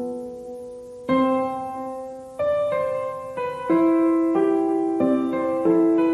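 Slow, gentle background piano music: notes and chords struck every second or so, each ringing on and fading before the next.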